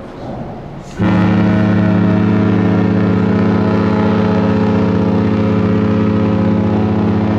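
A cruise ship's horn sounding one long, steady blast, starting suddenly about a second in and lasting about six seconds. Before it, wind noise.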